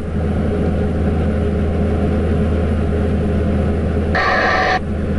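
Steady low drone of an IVECO lorry's engine and road noise, heard from inside the cab while driving.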